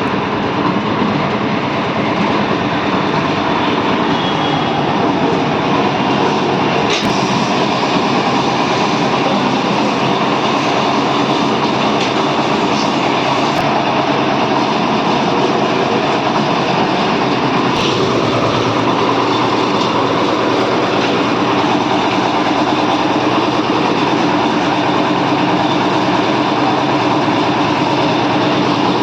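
Concrete mixer machine running: a loud, steady mechanical rumble and rattle, with a few sharp clicks along the way.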